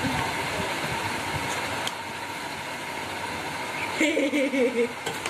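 Steady, even whirring noise of a small motor, with a faint constant tone in it. About four seconds in, a child's high voice cuts in over it.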